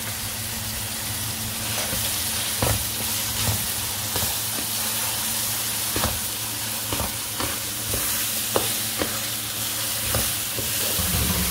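An onion-tomato masala with freshly added ginger-garlic paste sizzles in a kadhai as a spatula stirs it. The spatula scrapes and knocks against the pan at irregular moments, about once a second.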